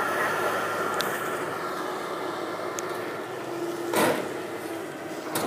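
Demolition machinery running steadily at a factory demolition site. There is a sharp crash about four seconds in and a shorter one near the end.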